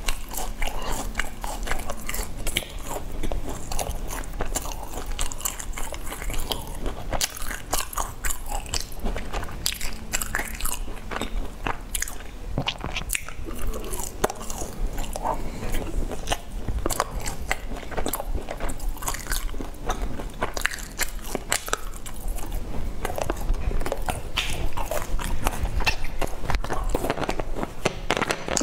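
Close-up chewing and crunching of sesame-crusted bread: crisp bites and many small irregular crackles of the crust being chewed.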